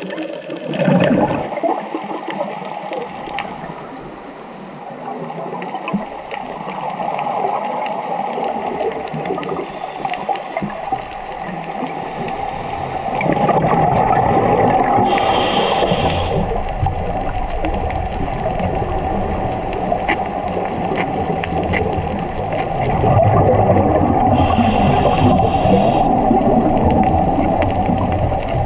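Underwater recording of scuba breathing: gurgling, rumbling bubbles from exhaled breath, with a short hiss from the regulator about 15 seconds in and again about 25 seconds in.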